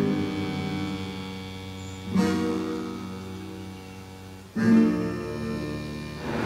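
Background music: slow acoustic guitar chords, a new chord strummed about every two and a half seconds and left to ring and fade.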